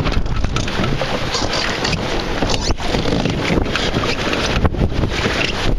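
Strong wind buffeting the microphone over water rushing and slapping against the hull of a Snipe dinghy sailing in a fresh breeze.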